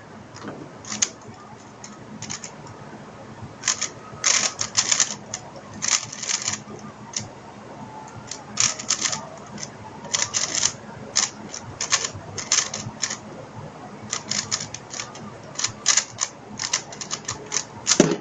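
3x3 speedcube being turned fast during a speedsolve: rapid clusters of plastic clicking and clacking from the layer turns, separated by short pauses.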